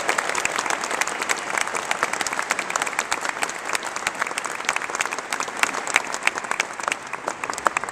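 Audience applauding, the clapping slowly thinning and dying away near the end.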